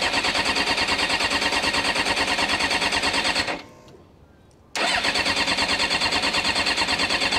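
Electric starter cranking the 1996 Suzuki GSX-R 750 SRAD's four-cylinder engine in two attempts of about three and a half seconds each, with a short pause between them. The cranking rhythm stays even and does not rise into a run: the engine does not catch, part of a no-start that the owner is tracing to faults in the wiring harness.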